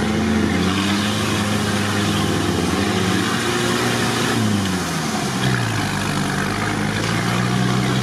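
Off-road 4x4's engine running steadily as it drives through water and mud on the track, with splashing and tyre noise. About four and a half seconds in, the engine note drops, then picks up again.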